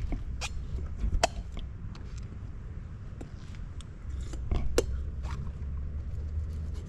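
Spoon scraping soft jelly out of the inside of a green coconut: scattered short clicks and scrapes against the shell, the sharpest about a second in and again near five seconds, over a low rumble.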